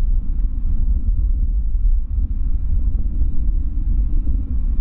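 Steady low rumble of a Boeing 787-9 jetliner's engines as it taxis.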